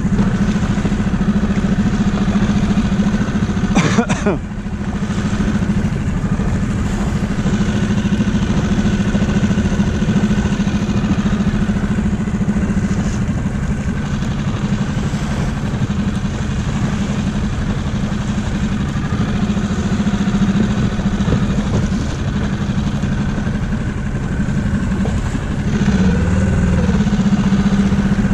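Small outboard motor running steadily at low trolling speed. There is a sharp knock about four seconds in, and near the end the engine note dips and rises briefly as the throttle is moved.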